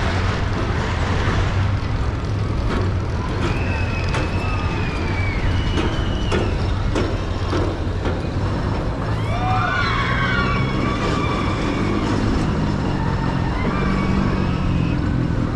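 Amusement-park ambience heard from a moving chairlift: a steady low rumble and hum that grows fuller about halfway through, with high wavering cries rising and falling over it and a few sharp clicks.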